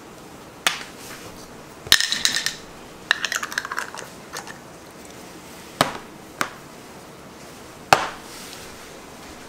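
A series of sharp clinks and knocks of kitchen utensils and containers set down and handled on a stainless steel worktop, several followed by a short metallic ring.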